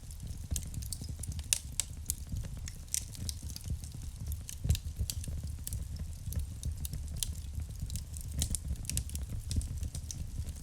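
Wood fire burning in a fireplace, with sharp, irregular crackles and pops over a steady low rumble of the flames.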